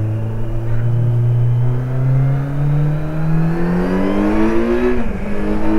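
Kawasaki Z900's inline-four engine pulling in gear, its note climbing steadily for a few seconds. About five seconds in the pitch drops sharply and then holds steady, like an upshift.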